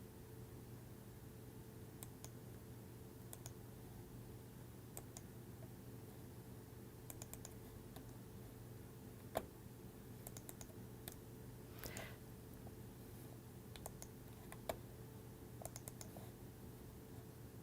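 Scattered clicks of a computer mouse and keyboard over a steady low hum, the loudest click about nine seconds in.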